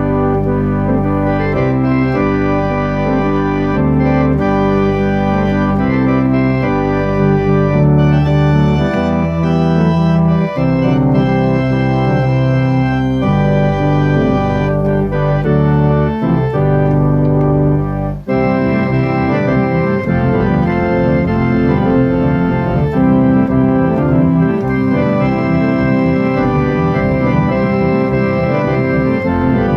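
Two-manual organ being played: sustained chords over deep bass notes, then about two-thirds of the way through the bass drops away and lighter, quicker-moving notes go on.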